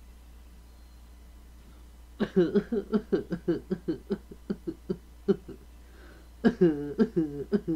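A person laughing in quick, pitched pulses. It starts about two seconds in, breaks off briefly, and comes back near the end.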